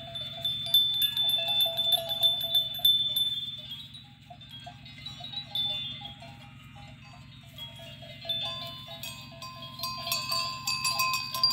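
Goats with a metal neck bell clinking irregularly as they move, over a steady low hum.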